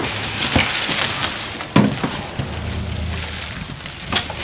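Clear plastic wrapping crinkling and a cardboard box scraping as a bagged electric pressure washer is lifted out of the box, with sharp knocks about half a second in, just under two seconds in and near the end.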